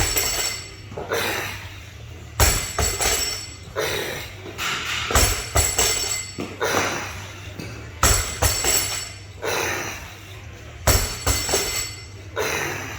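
Workout equipment thudding in a steady rhythm, about one hit every second and a half, under the voices of onlookers.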